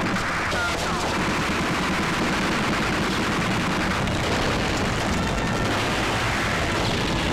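Film soundtrack of sustained automatic gunfire: a machine gun firing rapid, continuous shots without a break.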